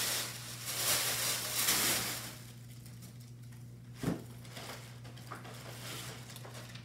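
Packaging around a purse rustling and crinkling as it is pulled off, loud for about two seconds, then quieter with a single knock about four seconds in.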